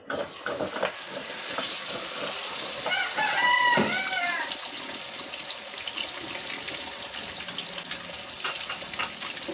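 Eggs frying in oil in a pan, a steady sizzling hiss. A rooster crows once about three seconds in, a call of about a second and a half.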